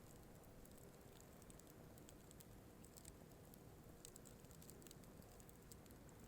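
Wood fire burning faintly, with scattered irregular crackles and small pops over a low steady rush.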